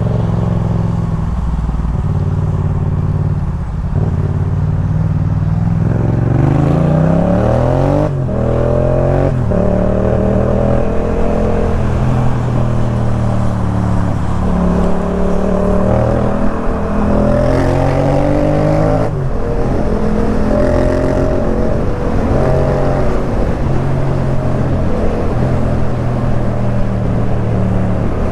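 Yamaha MT-07's parallel-twin engine through a Jeskap K4 full exhaust while riding: the pitch climbs hard under acceleration and drops sharply on an upshift about eight seconds in, then rises and falls through further shifts and steadier cruising.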